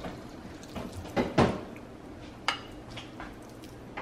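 Wooden spoon stirring sticky rice in a cast-iron pot: soft scraping with a few sharp knocks of the spoon against the pot, the loudest about a second and a half in.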